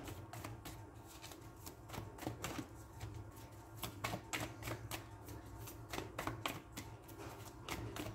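A deck of tarot cards shuffled by hand: a run of soft, irregular card clicks and flicks, with a faint steady low hum underneath.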